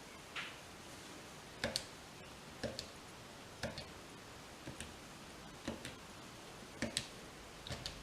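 Homemade Arduino airsoft time bomb ticking through its countdown: a faint, short click, often doubled, about once a second.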